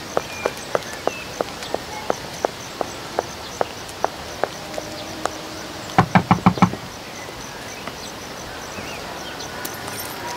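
High-heeled shoes walking briskly on hard ground, about three steps a second, then a quick run of about six knocks on a door about six seconds in.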